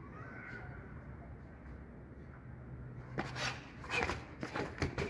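Steady low background hum, then from about three seconds in a quick run of about five slaps and scuffs: fists striking a small hanging bag and training shoes shuffling on concrete.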